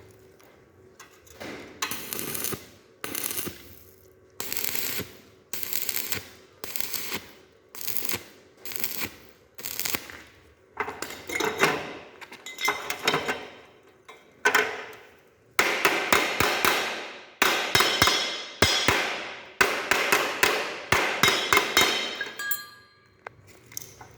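Stick arc welding: the arc crackling in a run of short bursts, each starting sharply and fading, becoming longer and closer together about two thirds of the way through.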